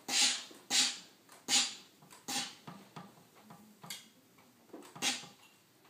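Steam iron pressing a wool jacket: a series of short hissing bursts of steam and iron on cloth, four in quick succession about a second apart or less, then two more spaced further out.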